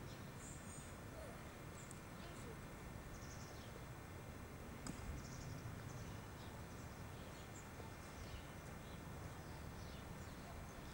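Faint outdoor background: a steady low rumble of distant city traffic with small birds chirping now and then.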